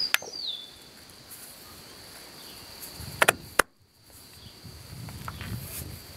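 A few sharp metallic clicks and knocks as the end cover is fitted back onto a riding-mower electric starter: a pair just after the start, and three more about three to three and a half seconds in. A steady high cricket trill runs underneath, and a short falling bird chirp sounds near the start.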